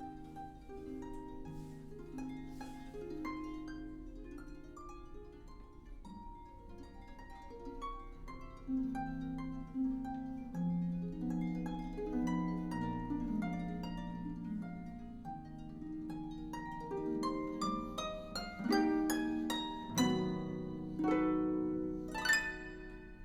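Solo concert harp playing, a flowing run of plucked notes that grows louder and busier, ending in quick rising arpeggios and a bright final stroke.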